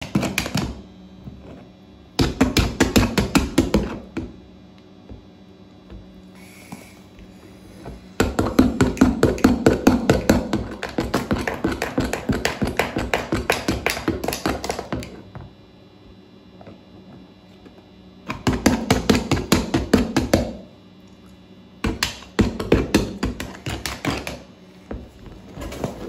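A paintbrush being rapidly jabbed and struck against a painted board, making fast runs of sharp taps several a second. The runs last from under a second to about seven seconds, with pauses between them.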